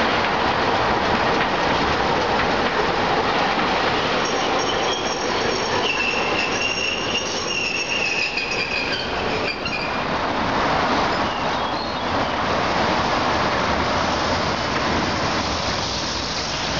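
Streetcars running along street track amid the steady noise of road traffic. From about four to ten seconds in, the steel wheels give a high, wavering squeal.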